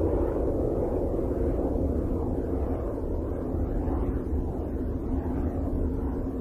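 Sonified spacecraft radio and plasma-wave data: a dense, steady low rumble and hiss, with faint arching swells recurring higher up.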